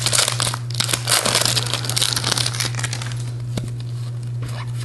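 Foil Pokémon booster pack wrapper being torn open and crinkled by hand, dense crackly rustling for about three seconds, then lighter rustling, over a steady low hum.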